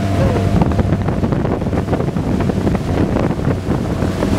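Wind buffeting the microphone on a moving motorboat, over the rush of its churning wake and the steady low hum of its engine.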